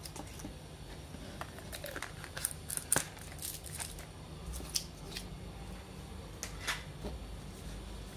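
Hands handling a plastic supplement bottle of fish oil softgels: a scatter of sharp clicks and light rustles, the loudest about three seconds in.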